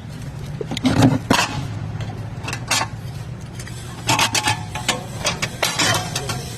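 A run of sharp knocks and clatters over a steady low hum. The loudest are about a second in and a cluster between four and six seconds in.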